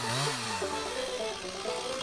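Gas chainsaw running at speed with its pitch rising and falling, then dropping to a steady idle about half a second in, with background music over it.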